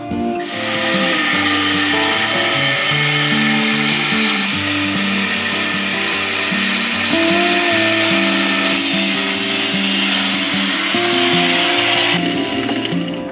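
Angle grinder cutting into a steel bar held in a vise: a steady grinding hiss with a high whine. The whine drops in pitch over the last couple of seconds before it stops, about twelve seconds in.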